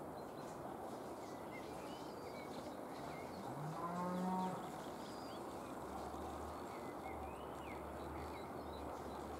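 A cow moos once about four seconds in, a short call that rises and then holds. Underneath runs a steady rushing background with faint high chirps, and a low hum comes in from about six seconds.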